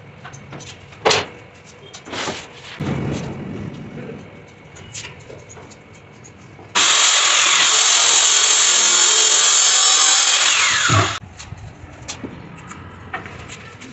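A few wooden knocks, then a power tool runs steadily for about four seconds and stops abruptly, ending in a thump.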